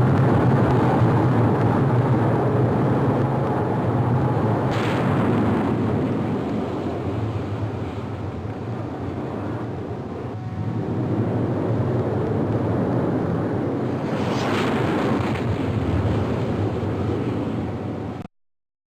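Jet airliner engines at takeoff thrust, a heavy, continuous rumble that eases off midway, swells again, and cuts off abruptly near the end.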